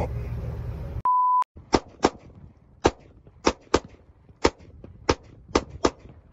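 A short steady one-pitch beep about a second in, then a string of about nine pistol shots fired at an uneven pace, several in quick pairs.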